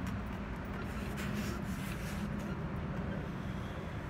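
Steady low outdoor background rumble, with a few faint brief rustles about a second in.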